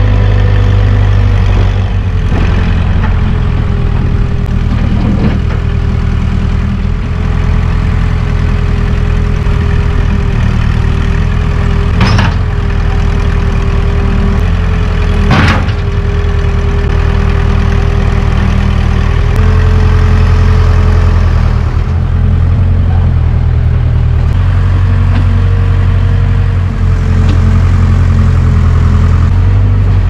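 Case 580K backhoe loader's four-cylinder diesel engine running steadily under load as the machine grades dirt with its front bucket, with two sharp knocks, one about twelve seconds in and another a few seconds later.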